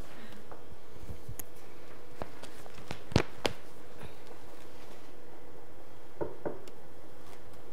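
Quiet room tone with a faint steady hum, broken by a few scattered clicks and knocks: two sharper ones close together about three seconds in and two softer ones about six seconds in.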